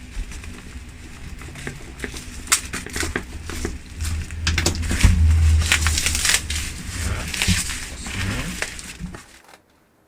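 Cardboard box and plastic packaging being opened and handled: irregular rustling, crinkling and knocks that stop abruptly near the end.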